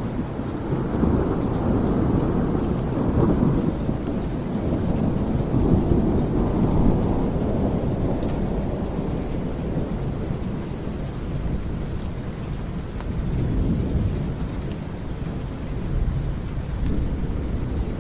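Steady rain with long rolling rumbles of thunder, the biggest swelling through the first half and smaller ones coming back later.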